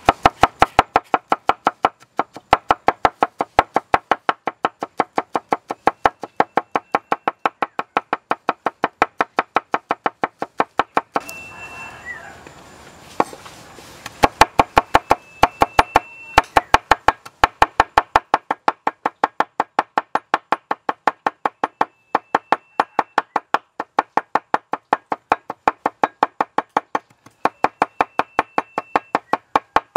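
A broad-bladed kitchen knife chopping fast and evenly on a wooden cutting board, mincing garlic and then chillies, about five strikes a second. The chopping breaks off for a few seconds around the middle, then picks up again.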